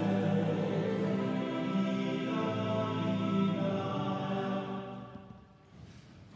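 Church hymn music with long held notes, fading out about five seconds in.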